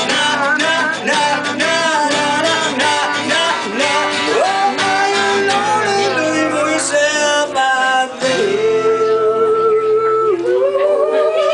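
Live amateur guitar duo: an electric guitar and a second guitar playing together, with a voice singing along. Near the end there is a long held note.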